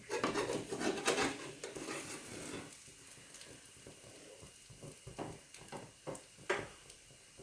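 Food sizzling in a hot oiled pan, busiest for the first two or three seconds, then quieter with a few light knocks of a utensil.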